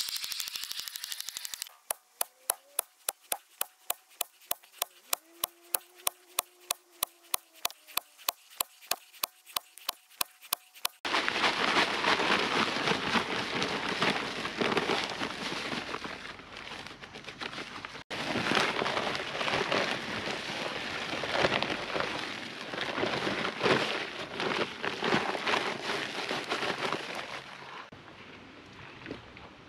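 Sledgehammer knocks on creek stone, sharp and evenly spaced at about four a second. About a third of the way in they give way to a long stretch of dense crackling and scraping as dry concrete mix is poured out of a bag over the stacked rocks.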